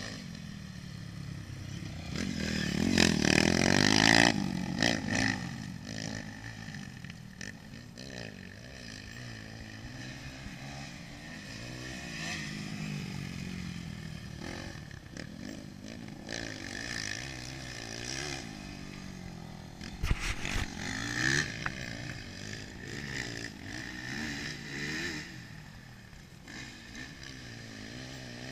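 Motocross dirt bike engine revving up and falling back again and again as it is ridden round the track, loudest in a surge about three seconds in. A few sharp knocks break in about twenty seconds in.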